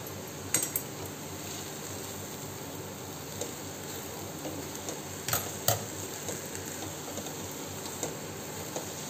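Steel spoon stirring sugar into grated raw mango in a steel pan, scraping through the mixture and clinking sharply against the pan a few times, about half a second in and again around five to six seconds in. The mixture sizzles steadily in hot ghee underneath.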